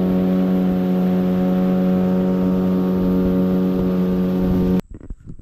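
Small outboard motor driving an aluminium boat at steady throttle: a loud, even drone that holds one pitch. It cuts off abruptly near the end, leaving a few faint knocks.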